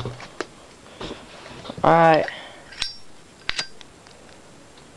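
Two sharp metallic clicks with a brief ringing tail, under a second apart, from a Zippo lighter's hinged lid being snapped. A short spoken "alright" comes just before them.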